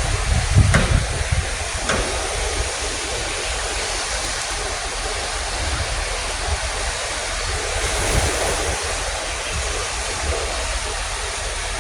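Strong sea waves washing in, a steady rush of surf, with wind buffeting the microphone, heaviest in the first second or two.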